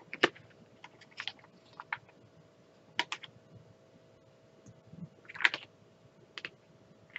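Scattered light clicks and taps of small plastic craft supplies being handled: diamond-painting storage bottles, their clear case and a marker. The sharpest click comes just after the start, and a short scratchy rustle comes about five seconds in.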